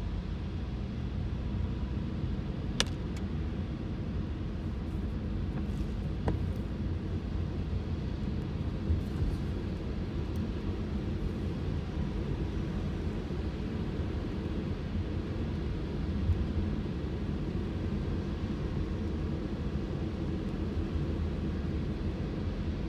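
Road noise heard inside a car's cabin while driving on a wet freeway: a steady low rumble of tyres and engine. Two sharp clicks stand out, about three and six seconds in.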